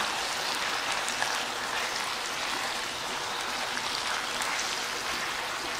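Yakisoba noodles and pork belly frying in a pan: a steady sizzle with a few faint crackles.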